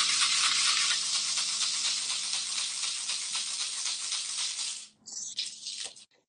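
Gourd rattle shaken rapidly in a continuous shimmer that slowly fades and stops about five seconds in, with a guitar chord ringing out underneath. A few faint rustles follow.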